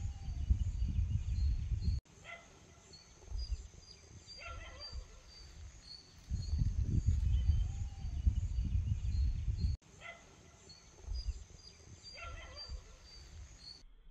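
Rural outdoor background: wind rumbling on the microphone in two stretches, each ending in an abrupt cut, over a steady high drone, with a few short distant animal calls.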